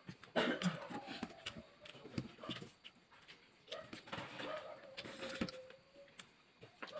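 Fingers working rice on a steel plate, with scattered clicks and soft squelches, while an animal whines in high, drawn-out tones, briefly early on and again for about a second and a half from around four seconds in.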